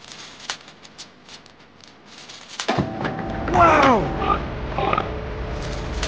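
Light clicks and clinks of a small metal chain being handled on a toy tractor. About three seconds in a low rumble starts, and a farm animal call that falls in pitch sounds loudest, followed by a couple of shorter calls.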